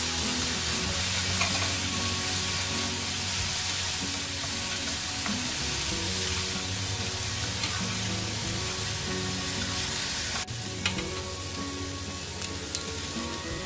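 Dried baby anchovies and green peas sizzling in a frying pan while wooden chopsticks stir them, with a few light clicks. The sizzle gets quieter about ten seconds in.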